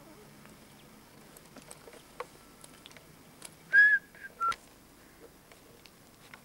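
Two short whistled notes a little over half a second apart, the first longer and slightly higher than the second. Faint scattered clicks sit in a quiet background.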